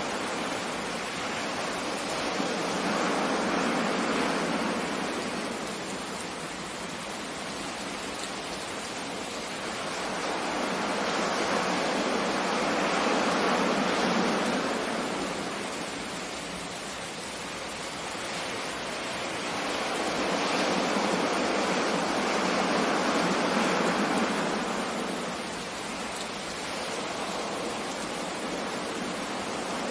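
Sea waves washing in: a steady rush of water noise that swells and falls back about every nine seconds.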